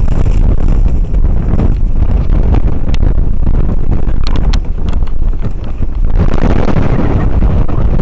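Wind buffeting the camera microphone: a loud, steady low rumble, with a few faint ticks about halfway through.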